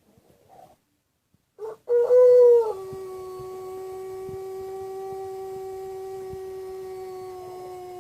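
White Pelung rooster crowing: a loud opening note about two seconds in, then one long drawn-out note, held steady and sinking slightly in pitch near the end.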